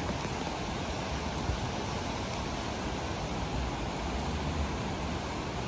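Steady rushing of a fast-flowing river pouring over a weir.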